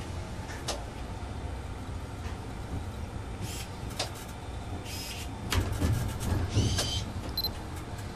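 Diesel train creeping onto a rail ferry's deck, heard from inside the driver's cab: a steady low engine rumble with a few sharp clicks and clanks from the wheels over the ramp track. It grows louder for a moment about five and a half seconds in, with clunks and a brief high squeal.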